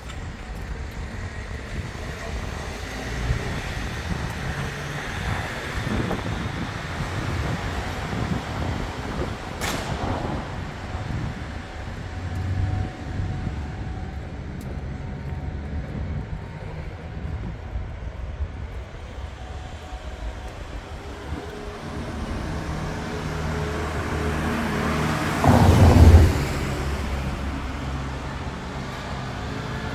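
Road traffic going by: a steady low rumble of engines and tyres, with one vehicle passing close and loudest near the end.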